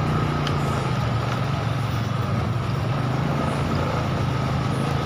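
Motorcycle engine running steadily while riding slowly through street traffic: an even low hum with a thin steady whine above it, over road noise.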